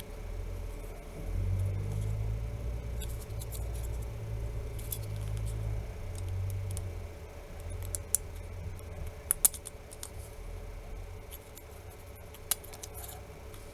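Small sharp clicks and taps of hands and a tool working at the LG K373 phone's motherboard, trying to push its latch aside and lift the board. A low handling rumble in the first half, then a few separate clicks.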